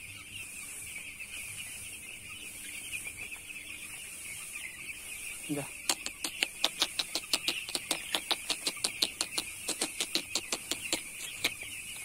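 A dense flock of young broiler chicks peeping together in a steady chorus. About halfway through, a fast, even run of sharp clicks starts up, roughly five a second, louder than the flock. It stops shortly before the end.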